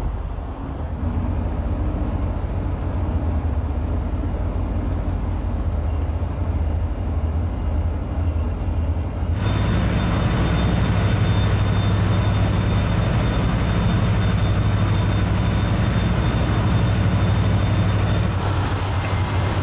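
Car ferry's engines droning steadily under way, with wind and water noise over the deck. About halfway through the sound jumps to a louder, deeper drone with a faint high whine, as heard at the stern over the churning wake.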